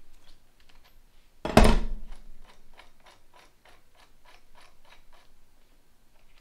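A chain press tool being worked to press a motorcycle chain's connecting link together: one loud metal clunk, then a run of short, even clicks, about four a second, that stops about five seconds in.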